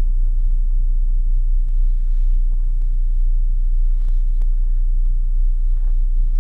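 Car-audio subwoofers (SCAR subs in a box enclosure) playing a very loud, steady deep bass note inside the closed car cabin.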